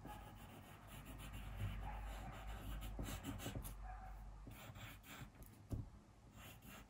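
Pencil drawing on paper: a run of short, scratchy strokes.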